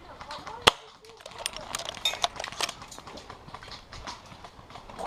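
Airsoft guns firing: one loud sharp pop under a second in, then a scatter of quicker pops and clicks over the next couple of seconds.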